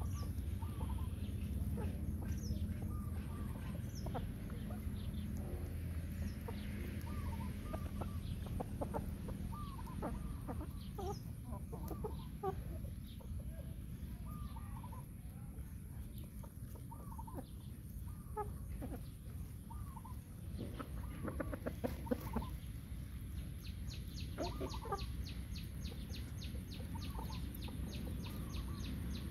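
A flock of young roosters and chickens clucking, with short scattered calls throughout, over a steady low rumble.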